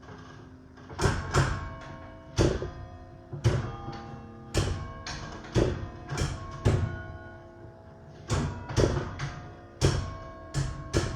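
Church tower bells struck one note at a time in a slow melody, about one strike a second, each note ringing on and overlapping the next.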